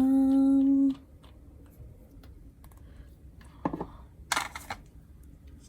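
A held hummed note of about a second, then light clicks and two short rustles of nail polish bottles and packaging being handled.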